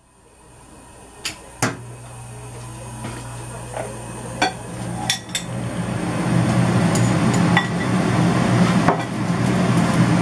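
A stainless steel wok knocking and clanking on a gas stove grate as it heats, a few separate knocks in all. A steady low hum sets in about two seconds in and grows louder.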